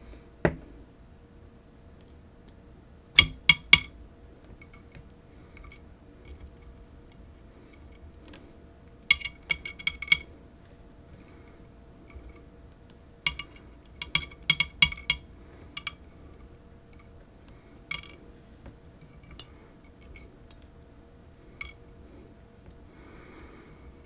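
Small metal parts clinking in short bursts of two to six sharp clicks every few seconds as key pins are taken out of a disassembled Ruko Garant Plus lock.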